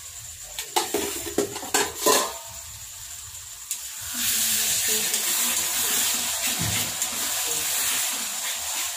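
A few sharp metal clinks of utensils against a pan. About four seconds in, a loud, steady sizzle starts as chicken pieces go into hot masala in a kadai on a gas stove, frying while they are stirred.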